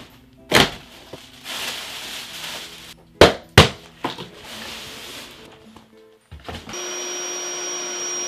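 A cardboard box being handled and opened: a thump, rustling, and two loud sharp thumps. About two-thirds of the way in an electric air-mattress pump starts and runs with a steady whine, inflating the mattress. Light background music underneath.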